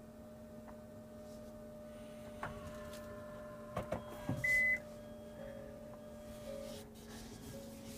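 Kia Bongo 3 EV pickup creeping past with its pedestrian warning sound on: a steady synthetic 'UFO sound' hum with a higher tone that shifts in pitch in steps in the second half, which the otherwise near-silent electric truck plays so pedestrians notice it. A short high beep sounds a little past the middle.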